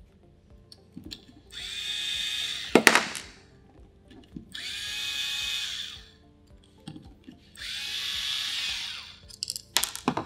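Electric drill driver backing out screws on the air rifle's stock, running in three short bursts of about two seconds, each spinning up and winding down. A sharp knock about three seconds in and a cluster of knocks near the end are parts handled on the bench.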